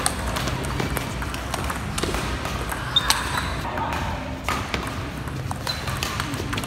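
Table tennis ball clicking sharply off rubber bats and the table in quick rallies, with a short break between points and faint voices in the background.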